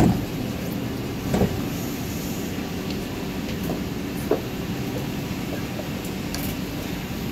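Steady hum inside a C751B MRT train car standing at a station platform, with a few short knocks at the start, about a second and a half in, and again a few seconds later.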